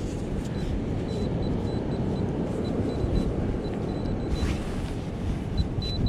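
Wind buffeting the microphone in a steady low rumble. Under it, a handheld metal-detecting pinpointer gives short, faint, high beeps over and over as it is probed through the sand of a dig hole.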